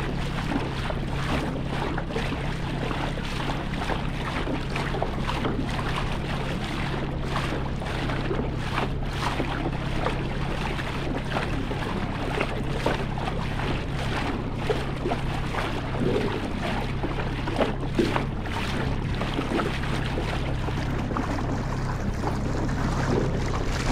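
Boat motor running steadily with a constant low hum, under wind buffeting the microphone and choppy water splashing against the hull.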